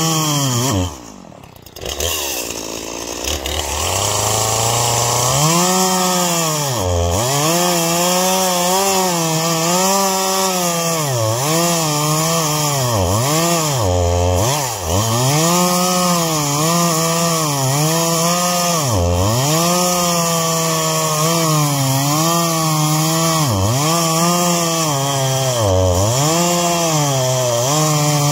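Poulan Pro 5020 two-stroke chainsaw cutting through a pine log. About a second in the engine drops off throttle, runs low for a few seconds, then revs back up. Through the rest of the cut its pitch sags and recovers roughly once a second as the chain bites into the wood.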